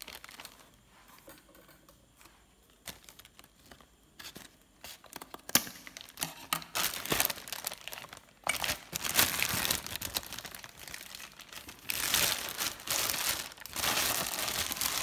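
Clear plastic wrapping bag crinkling and rustling as it is pulled open and off a wok, faint for the first few seconds and loud and almost continuous over the second half.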